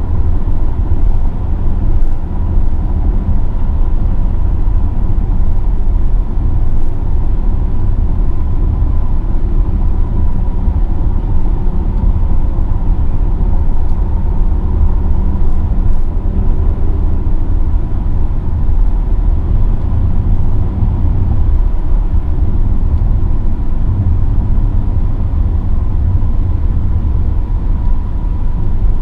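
Mercedes-AMG GLE 43 SUV driving at a steady speed: a steady low rumble from its twin-turbo V6, tyres and wind, with no revving or gear changes.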